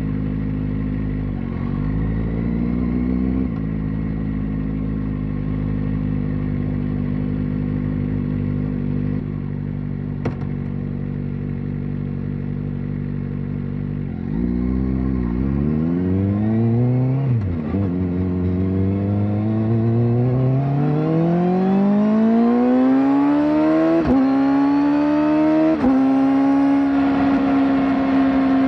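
Kawasaki ZX-4RR's 399 cc inline-four, through a slip-on exhaust, holding a steady cruise for about the first half, with a brief dip and rise in revs early on. About halfway in the rider accelerates hard: the engine note climbs steeply in pitch through several quick upshifts, each dropping it back briefly, and ends held at high revs.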